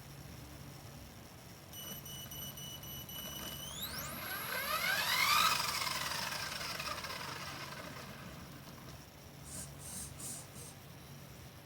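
Blade 180 CFX RC helicopter's electric motor and rotor spooling up. A high whine rises steeply in pitch to its loudest about five seconds in, then falls away as the rotor winds down. Three short high chirps follow near the end.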